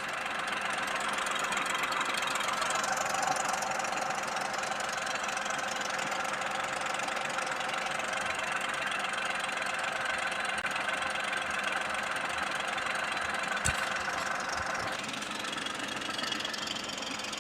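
Tata Punch's 1.2-litre three-cylinder engine idling steadily while running on CNG, heard with the bonnet open. A single sharp click about fourteen seconds in.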